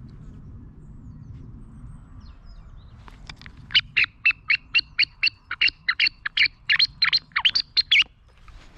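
A bird calling: a fast, evenly spaced run of loud, sharp chirps, about four a second, starting about three seconds in and lasting some five seconds.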